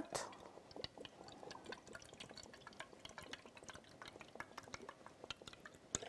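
Rose water being poured from a bottle into a small plastic tub: a faint trickle with many small drips and ticks.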